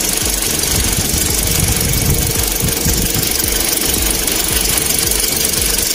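2010 Toyota Corolla engine idling steadily, back to a normal idle with number 3 working again after a fault that caused hard starting.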